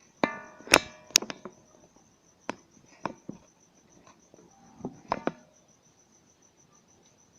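Small metal sewing-machine parts, the bobbin and bobbin case, being handled: a series of clicks and light metallic clinks, the loudest about a second in, fading out after about five seconds. A faint, high, evenly pulsing trill runs underneath throughout.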